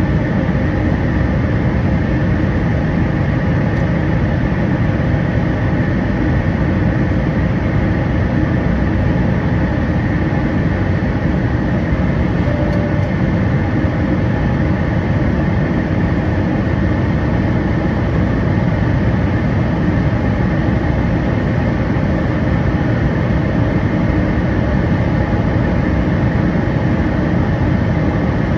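Steady cabin roar inside a Boeing 737 MAX 8 climbing after takeoff: its CFM LEAP-1B turbofan engines and the airflow, heard from a window seat over the wing. The roar holds even throughout, with a few faint steady tones in it.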